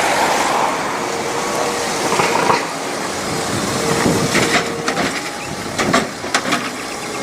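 Water spraying over a muddy toy double-decker bus as it is cleaned: a steady hiss with scattered clicks and knocks.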